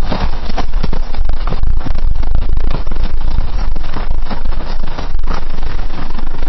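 Horse galloping on a dirt path: a fast, continuous run of loud hoofbeats striking the ground.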